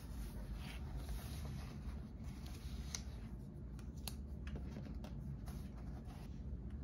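Pages of a thick paperback book being handled and turned, with soft paper rustles and a few light clicks and taps, the sharpest about three and four seconds in, over a low steady hum.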